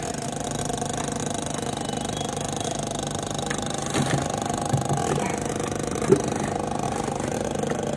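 A steady droning hum, with a few light knocks and scrapes of a firefighter's gear and air-pack bottle against a wooden stud frame as he works it free; one sharper knock about six seconds in.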